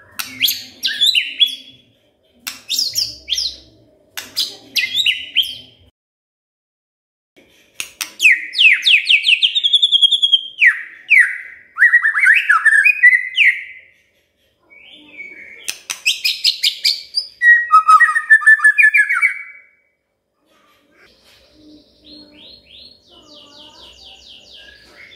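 White-rumped shama singing: loud bursts of rich, varied whistled phrases with sweeping notes and rapid trills, with short pauses between phrases. Near the end it gives way to a fainter, fast series of short repeated notes.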